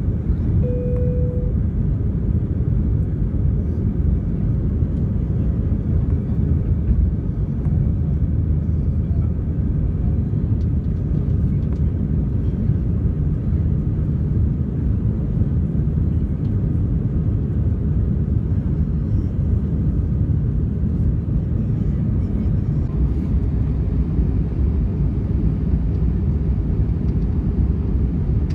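Steady low rumble of an Airbus A320-232's IAE V2500 turbofan engines and airflow, heard inside the passenger cabin during the climb after take-off. A brief single tone sounds about a second in.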